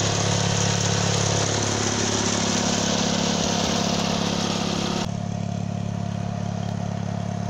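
A small tractor's engine running steadily at idle while its potato hiller is set up. A broad hiss over it cuts off suddenly about five seconds in, leaving the engine alone.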